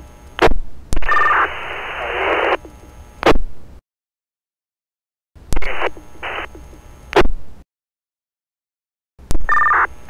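Fire department two-way radio transmission coming through as nothing but static, too weak to be readable. A hiss of static runs from about a second in, and sharp squelch clicks mark the start and end of each key-up. Shorter broken bursts follow, and a brief two-tone beep comes near the end.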